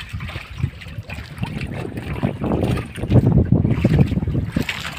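Strong wind buffeting the microphone over a rough sea washing against a small boat, with the gusts loudest about three seconds in.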